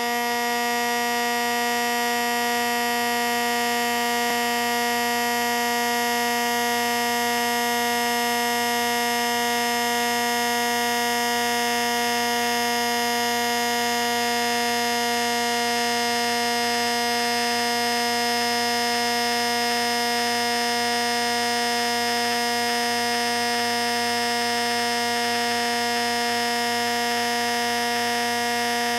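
Electric blender running at a constant speed, a steady motor whine.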